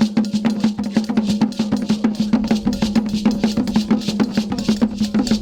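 Music with fast, even percussion: sharp clicks about six a second over a steady low held note.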